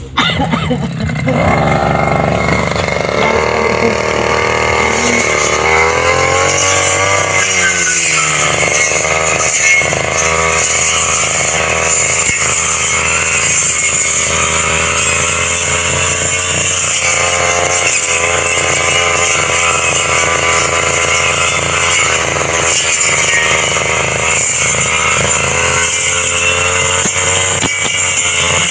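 A small petrol engine running continuously, its pitch rising and falling as it is revved up and down.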